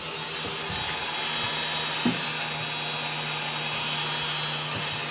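Heat gun switched on with a click, then its fan motor running with a steady blowing hiss and low hum, heating adhesive-lined shrink tubing over a crimped cable lug.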